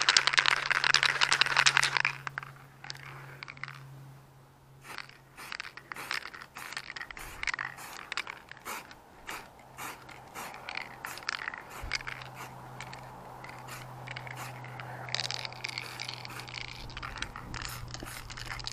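Aerosol spray can of grey primer hissing: a loud two-second spray at the start and another long spray near the end, with scattered clicks and rattles between the sprays.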